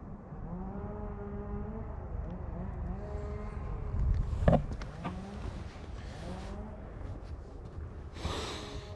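A person breathing hard on a steep climb, the long breaths partly voiced, over rumbling noise on the microphone, with a sharp knock about four and a half seconds in.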